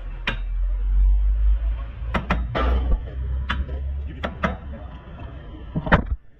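Sharp metal clinks and taps from hand tools working on a Hyundai Elantra's front wheel hub during a broken wheel stud replacement, about seven at irregular spacing, over a low rumble that stops near the end.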